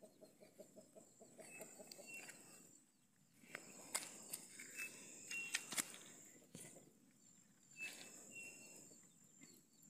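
Faint clucking of chickens, with a few short high chirps. Rustling and sharp clicks around the middle come from leaves being handled close to the microphone.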